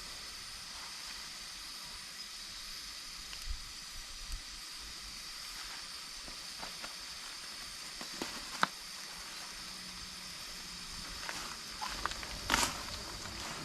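Campfire burning with a steady hiss and scattered crackles and pops, the loudest pop near the end.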